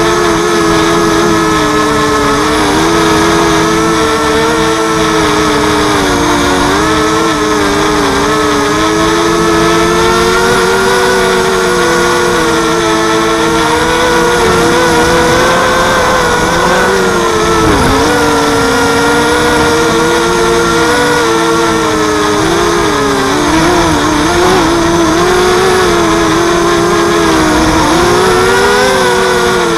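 Electric motors and propellers of a 230-size FPV mini quadcopter whining steadily, the pitch wavering up and down as the throttle changes, with a sharp dip about halfway through.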